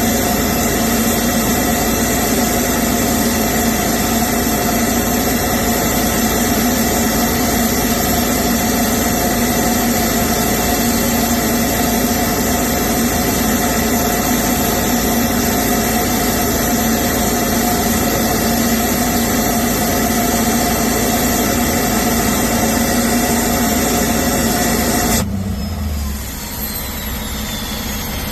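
Diesel engine running at a steady raised idle that drops abruptly to a lower, quieter idle about 25 seconds in, with a faint falling turbo whistle after the drop.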